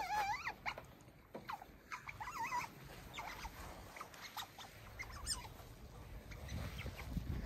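Pet otters calling: a high, wavering, warbling squeak at the start and another about two seconds in, followed by short scattered chirps and clicks.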